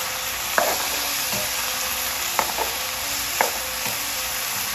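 Shrimp and mixed vegetables sizzling in a pan on high heat, stirred with a utensil that knocks against the pan a few times.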